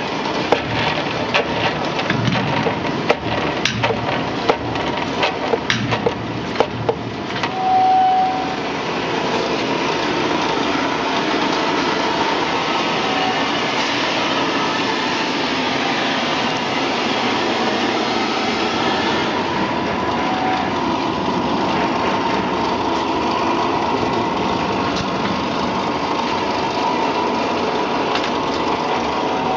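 Continuous peanut fryer machinery: a run of sharp metal knocks and clatter for the first several seconds, and a brief high tone about eight seconds in. From then on the machine runs with a steady mechanical noise and a faint hum.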